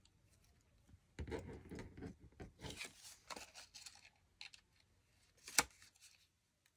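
Cardstock snowflakes being slid onto the prongs of a brad fastener: faint paper rustling and scraping for a couple of seconds, then one sharp click near the end.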